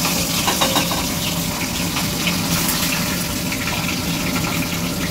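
Katla fish heads frying in hot oil in a pan: a steady sizzle with many small crackles and spatters.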